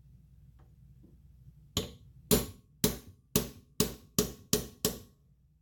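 A hammer striking a brass part eight times in quick succession, the blows coming gradually faster.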